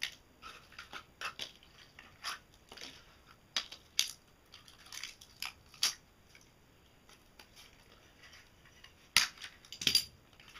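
Plastic wrap and stiff cured fiberglass being peeled and pulled off a resin layup: irregular crinkling and crackling with sharp snaps, the two loudest about nine and ten seconds in, along with the clicks of locking pliers being unclamped.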